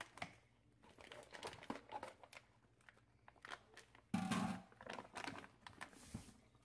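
Plastic meat packaging crinkling and rustling as a rack of raw pork ribs is pulled out of it in a stainless steel sink, with scattered small clicks and one louder handling noise about four seconds in.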